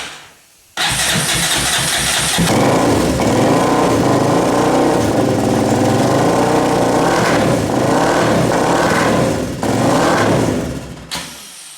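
Yamaha Raptor 660 quad's single-cylinder four-stroke engine running after a carburetor rebuild, cutting in sharply under a second in, revved up several times in the later part, then dying away near the end.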